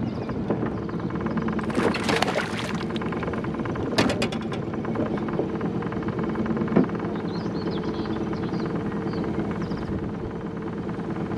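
A small boat motor runs steadily while a hooked pike is landed beside an aluminium boat. About two seconds in there is a splash as the fish thrashes at the surface, and later two sharp knocks.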